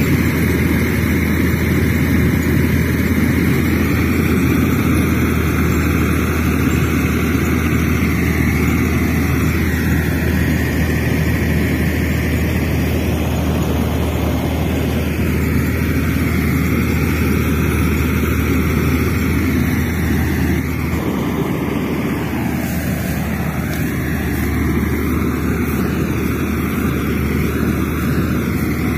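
Motor of a toy JCB-style excavator running steadily: a low hum with a fainter whine that rises and falls as it works.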